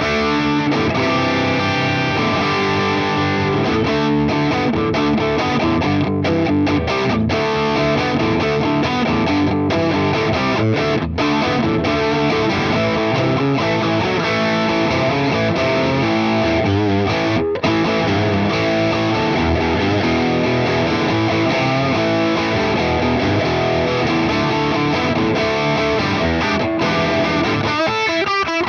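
Electric guitar played through a Boss IR-2 amp and cabinet simulator set to one of Boss's own amp models, driven into distortion. The chords and notes run on without a break.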